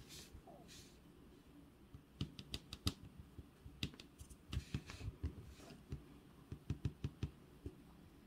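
An irregular run of small, sharp clicks and taps close to the microphone, starting about two seconds in and stopping shortly before the end, over quiet room tone.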